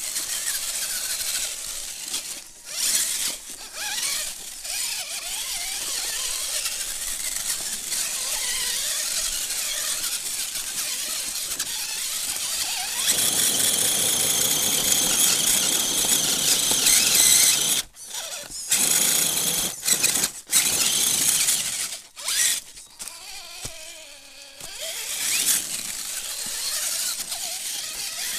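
High-pitched whine of a radio-controlled rock crawler's electric motor and gearbox as it drives over rock and dry leaves. The whine gets louder about halfway through, then stops and starts several times in the second half as the throttle is let off and applied again.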